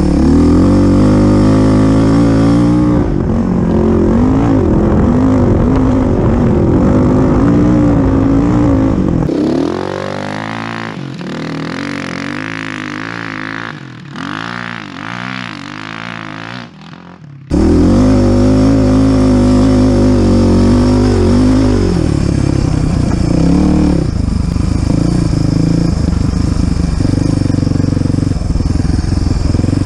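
Suzuki DR350SE dirt bike's single-cylinder four-stroke engine running under way, its pitch rising and falling with the throttle. For several seconds in the middle it drops to a quieter, lower run, then comes back loud suddenly a little past halfway.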